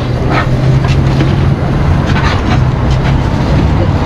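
Steady low rumble of a running engine with a constant hum, and a few short clinks over it.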